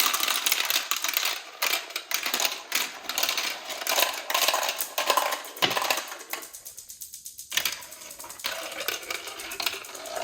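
A line of VTech Marble Rush balls rolling and clattering down plastic marble-run track, a dense rapid clicking that thins out and briefly stops about two-thirds of the way through, then goes on more sparsely.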